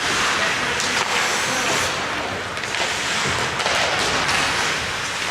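Ice hockey play: a steady hiss of skate blades scraping the ice, with frequent sharp clacks of sticks and puck.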